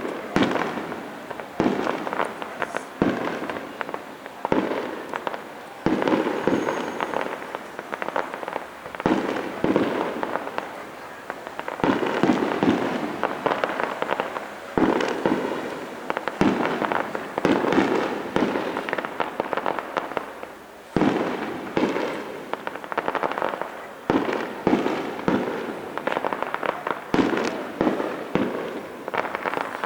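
Fireworks going off one after another: sharp bangs, each trailing into crackling, coming every second or two.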